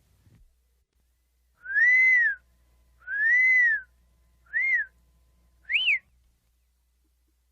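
Four whistled tones, each rising and then falling in pitch: two longer ones, then two shorter, higher ones.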